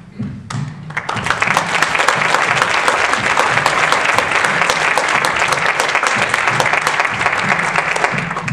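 Theatre audience applauding: dense clapping starts about half a second in, fills out within a second, and stops fairly abruptly near the end.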